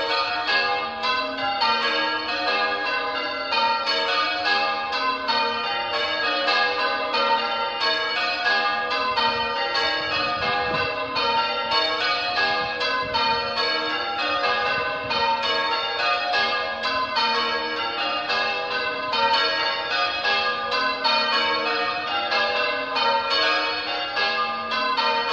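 Church bells rung full circle in change ringing: a fast, unbroken stream of bell strikes at many pitches, each bell sounding in turn as the rows change.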